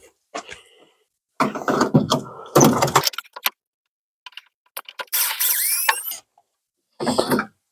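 Power drill running in about three short bursts, drilling out a bolt whose thread is stripped. The pitch rises during the middle burst.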